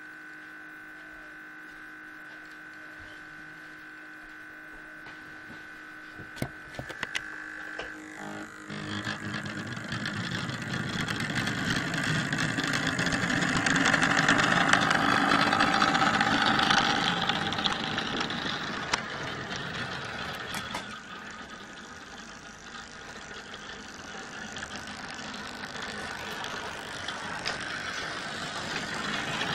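Model train running past close by: a steady hum at first, a few sharp clicks, then the rumble of the locomotive's motor and wheels on the track swelling as it passes about halfway through, easing off, and building again near the end as more of the train goes by.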